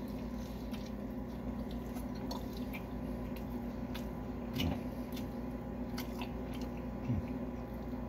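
Close-up mouth sounds of a man chewing a mouthful of burger: wet squelches and scattered smacks, over a steady low hum.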